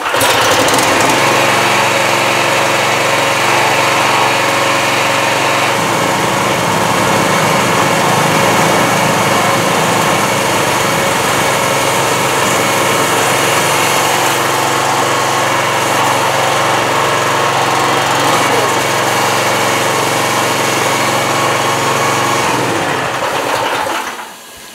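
Small petrol engine driving the hydraulic pump of a homemade log splitter, running steadily. Its note changes about six seconds in, and it stops near the end.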